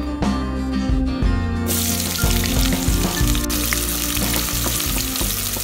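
Sliced red onions hit hot cooking oil in an aluminium pot and start sizzling suddenly about a third of the way in, then keep frying with scattered pops as a wooden spatula stirs them. Soft guitar music plays throughout, alone at first.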